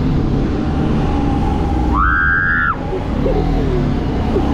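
Motorcycle engine running steadily in city traffic. A vehicle horn sounds once, about two seconds in, for under a second.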